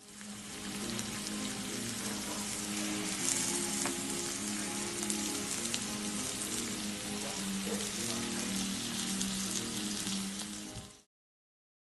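Ground Kuroge Wagyu beef and pork hamburg steak sizzling, a dense steady hiss with scattered crackles, cutting off abruptly near the end.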